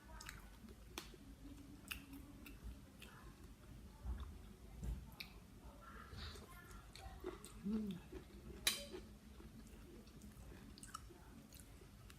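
Close-miked chewing of spicy blue swimmer crab salad, with scattered wet clicks and mouth smacks; the sharpest click comes a little before nine seconds in.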